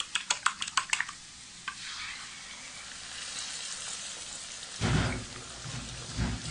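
A spoon beating eggs in a small bowl, clicking rapidly (about seven strikes a second) for the first second; then the beaten eggs go into the hot pan and sizzle steadily. Two dull thumps sound near the end.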